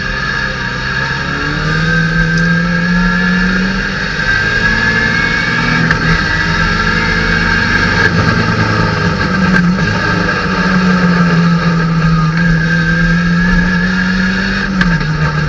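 Datsun 510 race car's four-cylinder engine heard from inside the cabin, accelerating hard up through the gears, its pitch climbing and dropping back at each upshift. It then holds high revs and drops in pitch near the end as the car slows for a corner.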